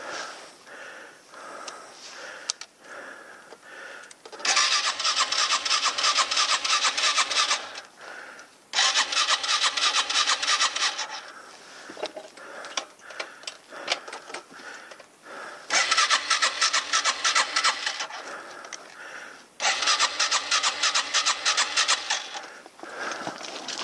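Yamaha TW200's electric starter cranking its single-cylinder engine in four tries of about three seconds each, with a slow, even chug of about three compression strokes a second; each try stops abruptly without the engine catching.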